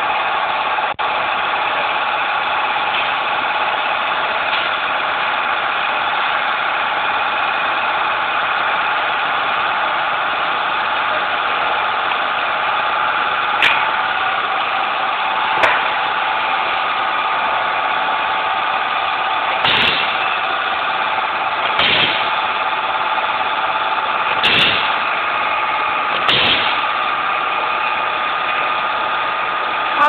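Wire-stripping and terminal-crimping machine running with a steady mechanical hum. From about halfway its press gives six sharp strokes, two to four seconds apart.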